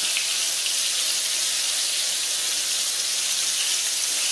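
Corn-flour-coated catfish pieces frying in hot lard in a cast iron skillet: a steady, dense sizzle like rain.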